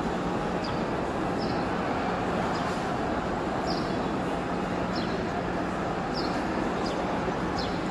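Steady, indistinct murmur of a large crowd of pilgrims walking around the Kaaba, many voices and footsteps blended into one wash of sound. Short, high chirps that fall in pitch repeat about once a second over it.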